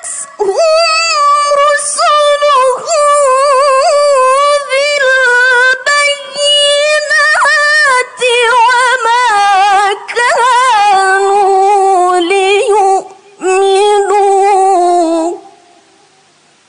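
A young woman's voice reciting the Quran in melodic tilawah style, through a microphone: long, ornamented phrases with heavy vibrato and short breaths between them. The line sinks to a lower register about eight seconds in and ends about fifteen seconds in.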